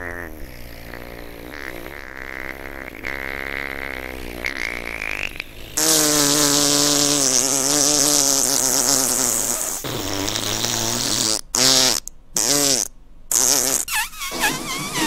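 Long, drawn-out fart noise with a wavering musical pitch, growing louder and lower about six seconds in, then breaking into several short sputtering blasts near the end.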